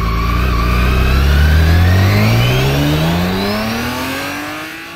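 Vehicle engine accelerating, its pitch rising steadily without a break and fading out near the end.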